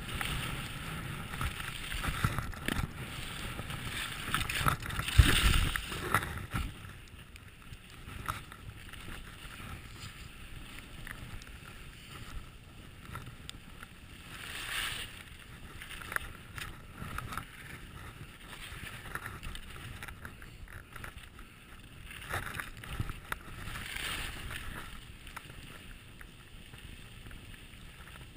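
Skis sliding on packed snow, with wind on the microphone: a loud, rough scraping for about the first six seconds, then a softer hiss with a few brief swells.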